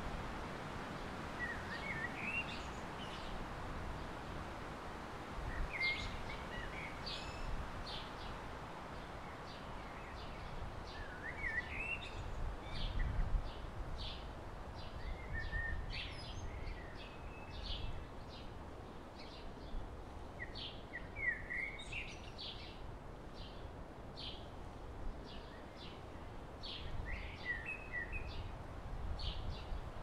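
Songbirds singing and calling, with a short rising, warbling phrase repeated about every four to five seconds among many quick high chips. Wind rumbles low on the microphone throughout.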